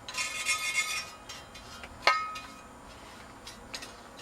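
Plastic parts of a dog water fountain being handled: a rasping scrape during the first second, then a sharp clink with a short ring about two seconds in, and a few light taps near the end.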